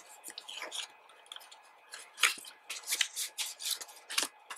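Photo cards being handled and slid into a paper sleeve: a string of short papery rustles and scrapes, the loudest a little over two seconds in and again just after four seconds.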